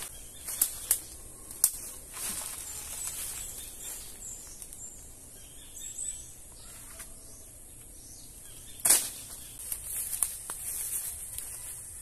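A banana plant being pulled down with a bamboo pole: sharp snaps and rustling of leaves and stalk, with a louder crash about nine seconds in and more snapping after it. A steady high-pitched drone and a few bird chirps sit underneath.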